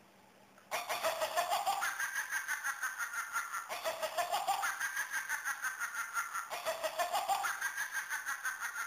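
Electronic light-up witch toy's cackling laugh, played three times in a row: each a fast chattering cackle about three seconds long that climbs in pitch and then holds.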